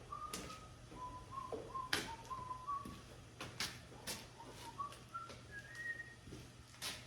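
A man whistling a tune softly, short notes wandering around one pitch and stepping higher near the end, with several sharp clicks and taps of work in the shop.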